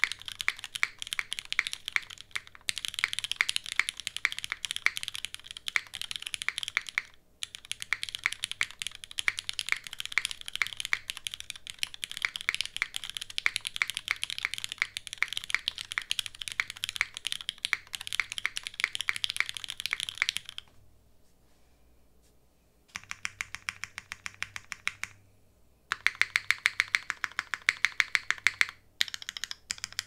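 Rapid typing on a custom 60% mechanical keyboard with lubed, diamond-polished Cherry MX Black linear switches on a carbon fiber plate, no case dampening, and GMK keycaps: a dense stream of keystroke clacks. It breaks off for a couple of seconds about twenty seconds in, then resumes in faster bursts.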